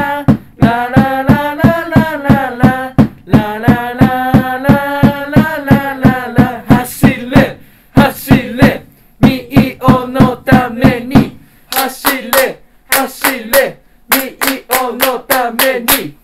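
Football supporters' chant sung over a steady drum beat of about four strokes a second. About seven seconds in the drum stops, and the line is sung again with hand claps keeping the rhythm.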